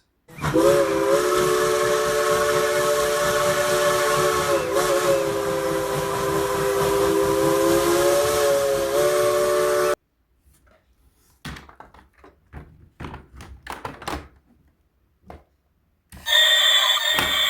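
Thomas the Tank Engine toy train playing its electronic steam-whistle sound effect: a long whistle tone with hiss that lasts about ten seconds and cuts off suddenly. Scattered clicks and knocks follow, and another electronic tone starts near the end.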